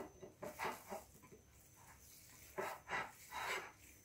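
Hands squeezing and kneading raw minced meat for kofta in a plate: faint, soft wet squishes, a few about half a second in and a closer cluster near the end.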